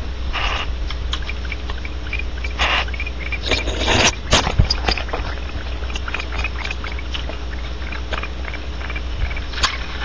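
Barn owls moving about in a wooden nest box: many small clicks and scratches, with a few short harsh, noisy bursts, the strongest about four seconds in, over a steady low hum.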